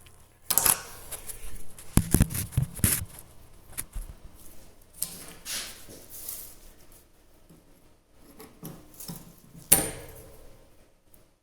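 Irregular metal clinks, clanks and scraping from working the cut-out steel plug out of the Evolution mag drill's annular cutter, with a sharp clack about ten seconds in as the loudest.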